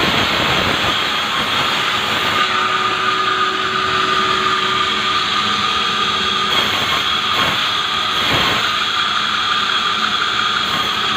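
Sawmill saw blade cutting through a hard acacia log, a loud steady noise with a high ringing tone. The harsh, cracked-sounding ring comes from the blade labouring in the dense wood.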